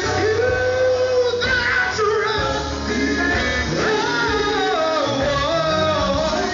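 Live gospel music: a male vocal group singing with a band of electric guitar, bass guitar, keyboard and drums, the sung lines bending and sliding over a steady bass.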